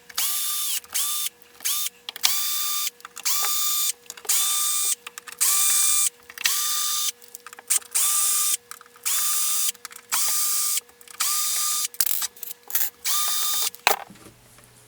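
Cordless screwdriver backing screws out of the subwoofer's back panel, running in many short bursts. Each burst starts with a quick rising whine.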